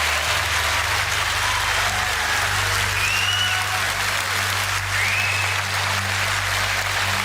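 Audience applauding, a dense steady clapping that fills the pause after a punchline in a political speech, with a few short whistles heard over it.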